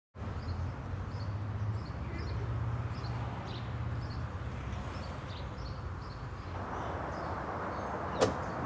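Suburban street ambience: a steady low hum with birds chirping lightly about twice a second. Near the end a single sharp click, the latch of a parked car's door.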